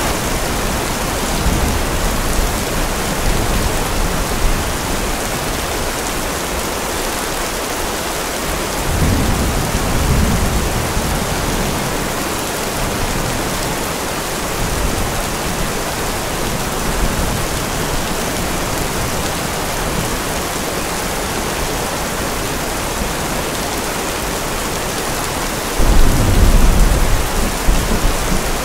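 Steady rain with rolling thunder: a low rumble swells about nine seconds in, and a sudden, louder rumble of thunder breaks near the end.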